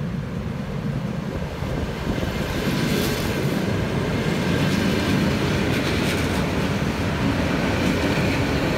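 EP3D electric multiple unit approaching and running past close by. Its rumble swells over the first few seconds and then holds loud and steady. A few sharp wheel knocks come over the rail joints, and a faint steady whine rises near the end.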